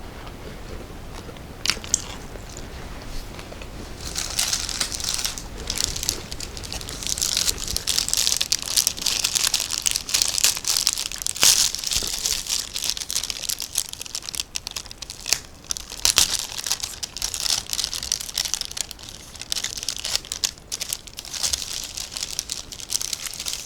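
Snack wrapper crinkling and tearing as a package is opened by hand: a couple of sharp clicks at first, then near-continuous crackling from about four seconds in.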